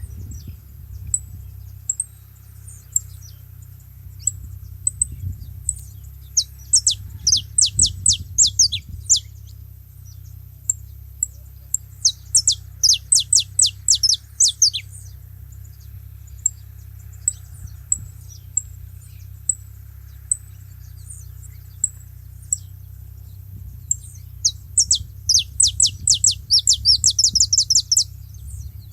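Saffron finches calling together: scattered short high chips throughout, broken by three fast runs of sharply falling notes, about six seconds in, about twelve seconds in, and near the end.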